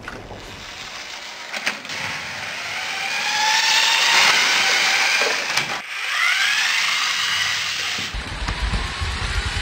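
Lego 9V electric train motor whining as the blue-and-white Railway Express (set 4560) runs past close by on plastic track. Its pitch glides up and down, loudest about four seconds in. Near the end the whine gives way to a low rattling rumble.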